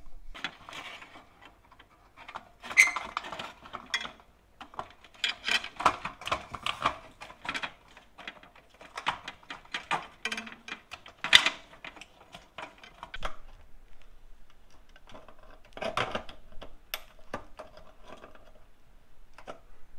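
Hands working on a sheet-metal fluorescent light fixture and its wiring: irregular clicks, taps and light rattles of metal and tools.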